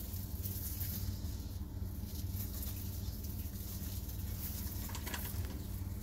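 Irregular light scratching and rustling from baby Saharan spiny-tailed lizards (Uromastyx geyri) scrabbling on a slate slab and tugging at a flower, with a somewhat stronger scrape about five seconds in. A steady low hum runs underneath.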